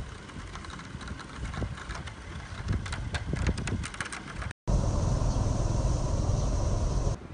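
Wind buffeting a phone microphone outdoors as a low, uneven rumble, with a quick run of light clicks about three seconds in. After a short break the rumble comes back louder and heavier, then drops away just before the end.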